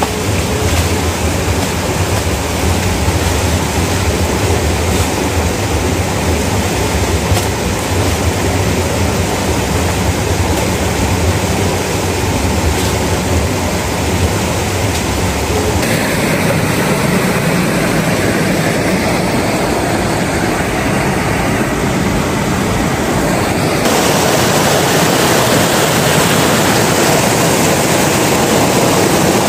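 A rocky hill stream rushing over stones: a steady, loud noise of flowing water that changes in tone twice, about halfway through and again near the end.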